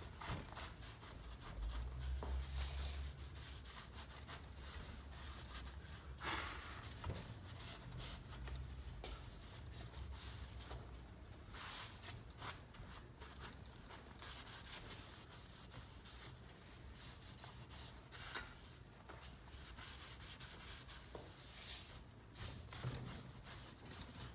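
Faint cloth rubbing and rustling as soot is wiped off a cast iron exhaust manifold and it is wrapped in towels, with a few light knocks over a low hum.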